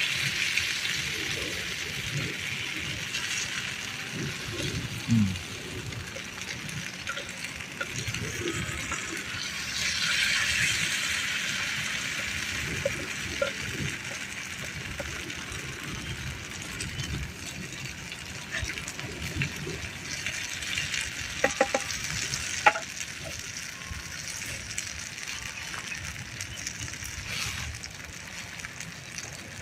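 Food sizzling as it cooks, a steady hiss that swells for a moment about a third of the way in, with a few light knocks a little past the middle.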